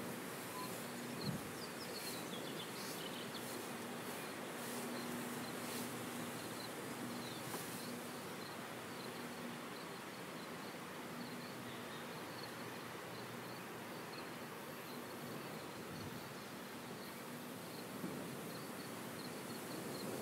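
Open-field ambience: an insect buzz that comes and goes, over a rapid, high, steady insect chirping.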